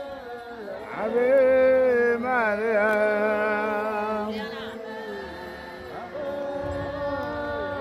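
A group of people singing a hymn together as they walk, several voices holding long notes that bend and slide between pitches. It is loudest a second or so in.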